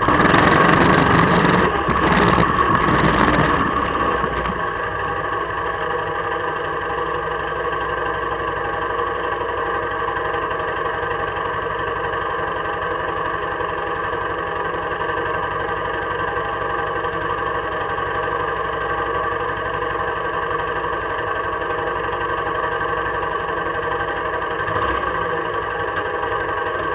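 1999 Honda Fourtrax 300 ATV's single-cylinder engine, louder and rougher with wind noise for the first four seconds while riding, then settling to a steady idle as the quad sits stopped.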